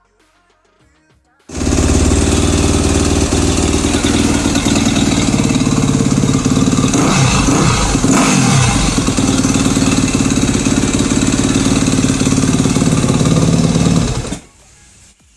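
2011 Yamaha YZ250F's 250 cc single-cylinder four-stroke engine running steadily, with a blip of the throttle about halfway through. It starts abruptly about a second and a half in and stops shortly before the end.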